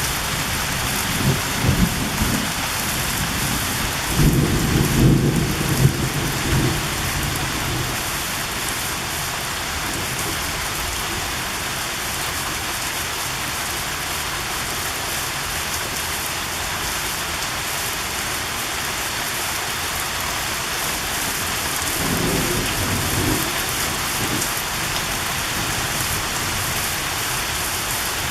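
Heavy summer rain pouring steadily in a thunderstorm, with low rumbles of thunder about a second in, again from about four to seven seconds in, and once more about three-quarters of the way through.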